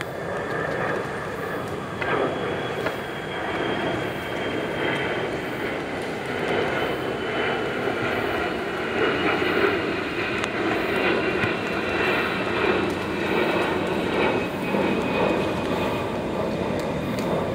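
A steady, loud mechanical drone with a high whine that slowly falls in pitch.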